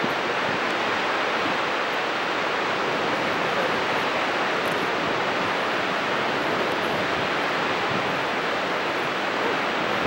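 Dettifoss, a very powerful waterfall, making a steady, unbroken rush of heavy falling and churning water.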